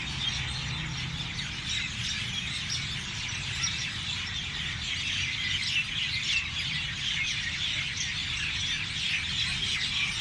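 A dense chorus of many small birds chirping and calling over one another without a break, over a steady low rumble.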